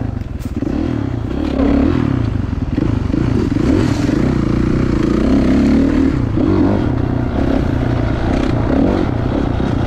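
2016 Kawasaki KX450 dirt bike's single-cylinder four-stroke engine running under a rider, its pitch rising and falling with the throttle and getting louder about a second and a half in.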